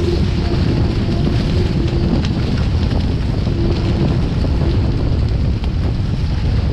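Heavy wind buffeting the microphone over rushing water and spray from the hulls of a small sailing catamaran moving fast. A faint steady hum comes through for the first two seconds and again for about a second around the middle.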